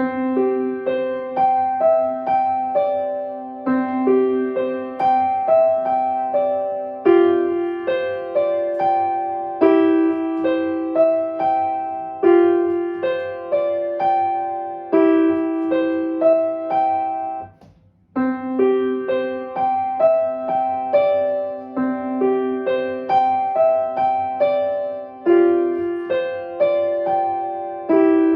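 Solo piano playing a flowing piece of repeating broken-chord figures, note after note in rising and falling patterns. About two-thirds of the way through the playing stops for a moment, then starts again.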